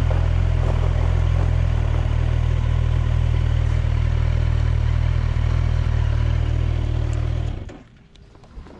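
Kawasaki Ninja 1000SX inline-four engine running at a steady, unchanging speed, then stopping about seven and a half seconds in.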